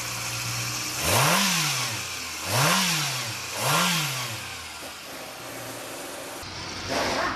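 Toyota Yaris engine idling, blipped three times in quick succession, each rev rising and falling straight back to idle.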